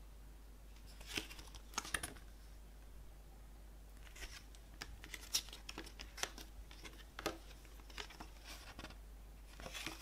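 Glossy paper pages of a CD booklet being handled and turned, with short crisp rustles and flicks: two about a second in, then a run of them through the middle and again near the end.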